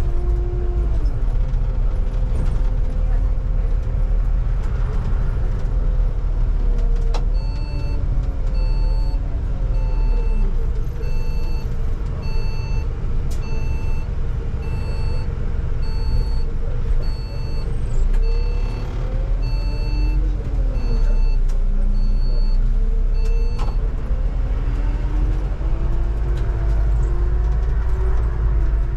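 Bus in motion heard from the driver's cab: a steady low drivetrain and road rumble, with a whine that rises and falls in pitch as the bus slows and picks up speed. From about seven seconds in until near the end, an electronic beep repeats a little faster than once a second, the cab's turn-indicator tone as the bus turns at a junction.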